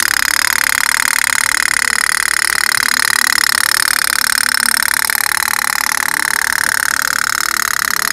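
Tin pop-pop (putt-putt) steam boat toy running on water, with a rapid, steady putt-putt. The sound comes from the thin tin plate of its little boiler, which a small oil-wick flame keeps hot.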